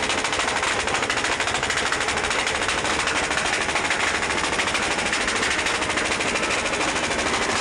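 Motorcycle exhausts revved hard, giving a dense, continuous rapid popping with no let-up.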